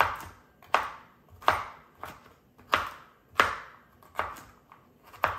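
A kitchen knife chopping a carrot into rounds on a cutting board: about eight sharp knife-on-board strikes at an uneven pace, roughly one every half second to second.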